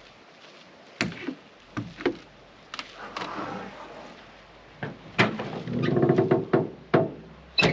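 Latches clicking and doors thunking as a ute's canopy is opened, about seven sharp knocks spread out, with a longer sliding, scraping sound around six seconds in.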